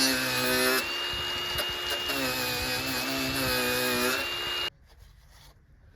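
Electric power tool running with a steady high whine over a lower hum, wavering a little in pitch, then stopping abruptly near the end.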